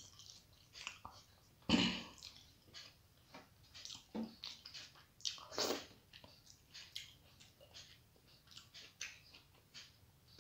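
Close-miked eating sounds of a person chewing a mouthful of rice with wet smacks and clicks, and fingers gathering rice on a steel plate. One louder knock comes a little under two seconds in.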